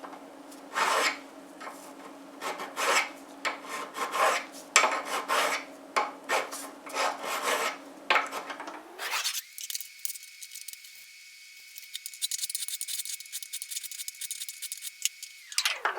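Hand cleanup of a machined arbor: irregular scraping and rubbing strokes over a steady low hum. About nine seconds in the sound thins to a faint high hiss with a steady high tone, and the scraping comes back near the end.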